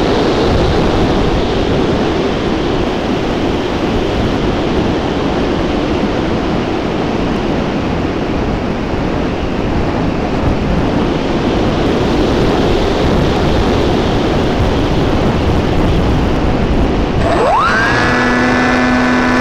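Airflow rushing over a radio-controlled model plane (a Cessna 337 scale model) in flight, heard from its onboard camera as a loud, steady rush. Near the end the plane's motor throttles up: its whine rises quickly in pitch, then holds steady.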